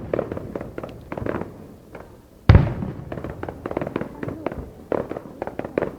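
Fireworks display: a continuous crackle of small pops and bangs, with one loud, deep boom of an aerial shell about two and a half seconds in.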